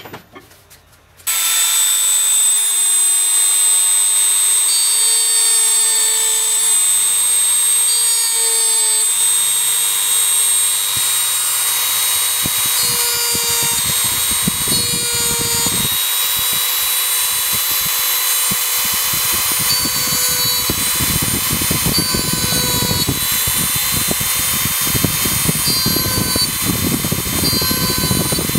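Handheld rotary tool switched on about a second in, running at high speed with a steady high whine. From about halfway, an uneven grinding is added as its small bit works against the wooden spoon blank.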